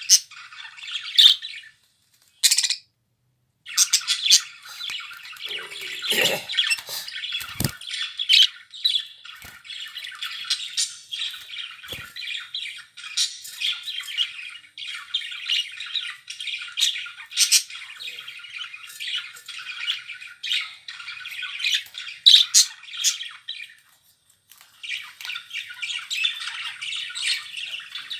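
Budgerigars chattering and warbling, a busy run of squawks and chirps, which cuts out completely for about a second near the start.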